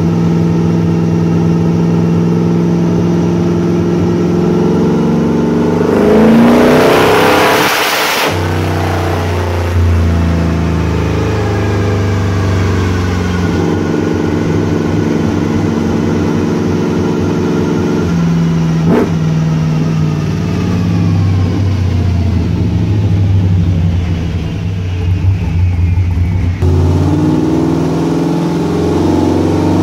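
Cammed 6.0-litre LS V8 in a 1994 GMC Sierra pickup running on a chassis dyno. About six seconds in it revs hard at full throttle for about two seconds, then the throttle is lifted and the engine and dyno rollers wind down with a slowly falling pitch. A single sharp click comes partway through.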